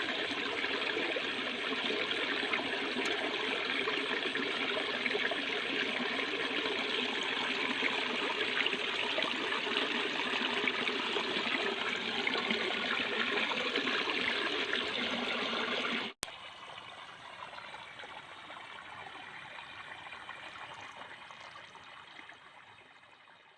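Steady rush of running water. About sixteen seconds in it cuts off suddenly to a quieter water sound that fades away near the end.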